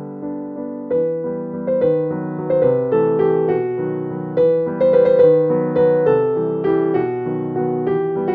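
Background piano music: a melody of struck notes that fade, over lower accompanying notes.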